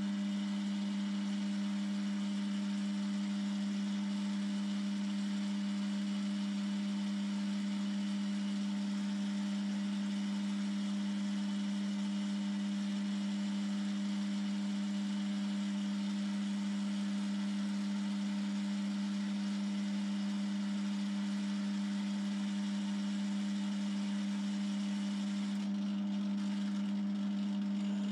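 BL250D bench lathe running at a steady speed, its motor and drive giving an even hum with one strong low tone.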